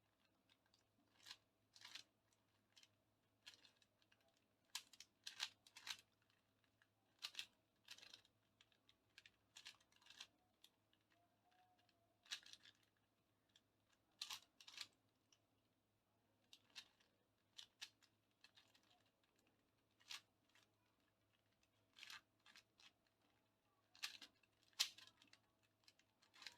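Plastic layers of a 4x4 Rubik's cube clicking and clacking as they are turned by hand, in short irregular bursts every second or so, while the cube is scrambled into a parity case.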